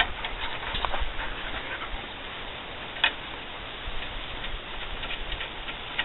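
Scattered light metal clicks and ticks of bolts and fittings being handled on a mud motor's shaft housing, with one sharp click about three seconds in, over a steady hiss.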